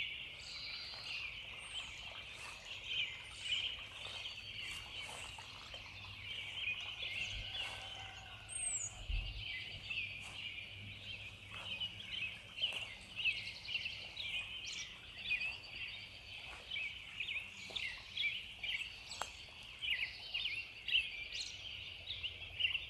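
Natural field recording of a dense chorus of animal calls: many short chirps overlapping without a break, with a few higher whistled calls over them now and then.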